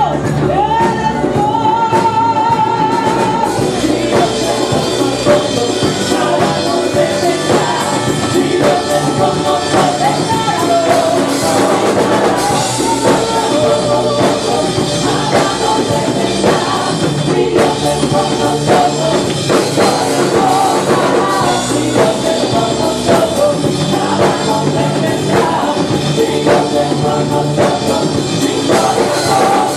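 Praise and worship music: singing over a full band with drums.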